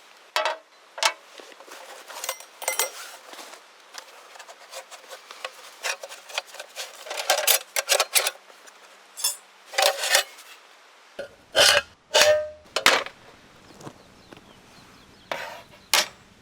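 Cookware and metal utensils clinking and clattering in a string of irregular short knocks and scrapes, one clink ringing briefly near the end.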